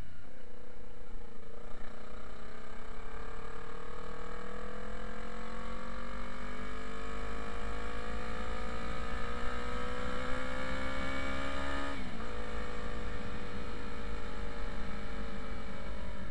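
Motorcycle engine pulling in one gear, its pitch rising slowly for about ten seconds. About twelve seconds in the pitch drops suddenly at an upshift, then sinks gently as the bike eases off.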